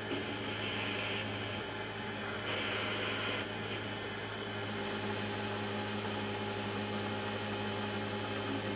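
Small metal lathe running with a steady motor hum while a cutting tool turns an aluminium workpiece; a higher cutting noise comes and goes during the first few seconds.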